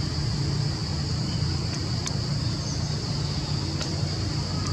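Steady outdoor ambience: a low, even rumble with a steady high-pitched insect drone over it and a few faint ticks.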